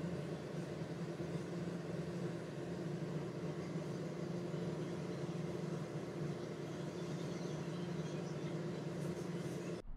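Steady machine hum over a background hiss, as of a fan or motor running, unchanging until it cuts off suddenly near the end.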